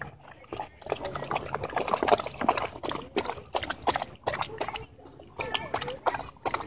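A German Shorthaired Pointer lapping water from a plastic tub, a quick irregular run of small splashes and slurps.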